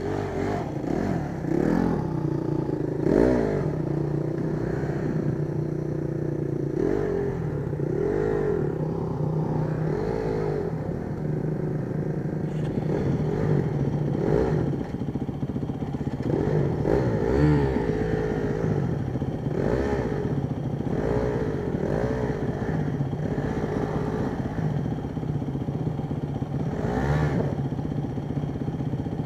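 A single-cylinder Honda CRF dirt bike idles steadily close by. Another dirt bike's engine rises and falls in repeated short revs of the throttle, every second or two, as it works up a loose, rocky climb. A few sharp clicks and stony clatter come in among them.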